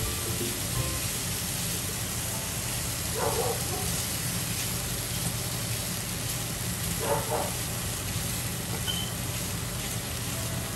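Raw shrimp sizzling steadily in a hot nonstick frying pan as they are turned with metal tongs, with brief clatters of the tongs about three and seven seconds in.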